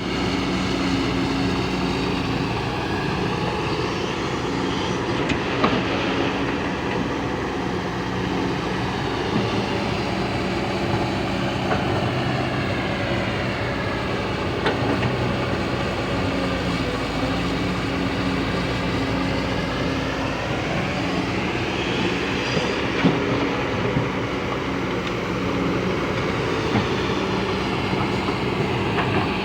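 Kobelco hydraulic excavator's diesel engine running under working load, with steady low tones that shift as the hydraulics are worked and a few sharp metallic knocks.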